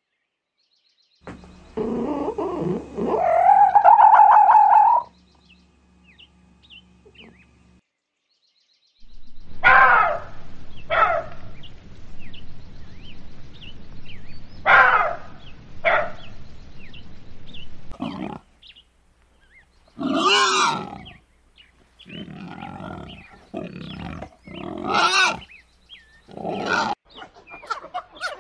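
A series of animal calls: a longer call that rises in pitch about two seconds in, then after a pause many short calls in quick clusters.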